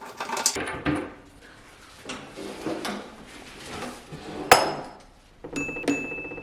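Metal parts being handled, clinking and knocking, with one sharp strike about four and a half seconds in and a ringing metallic clink near the end whose tone lingers.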